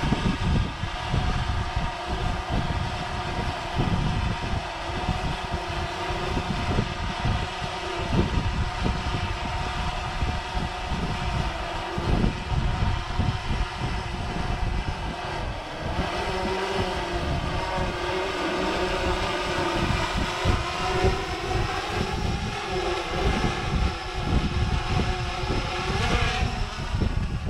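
Small drone hovering overhead, its propellers giving a steady whine whose pitch wavers and shifts later on as it manoeuvres. Gusty wind rumbles on the microphone.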